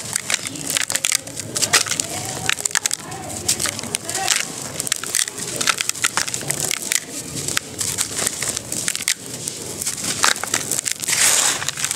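Dry sand-cement clumps crushed and crumbled by hand in a plastic tub: irregular crisp crunches and crackles with gritty powder trickling, a louder gritty rush near the end.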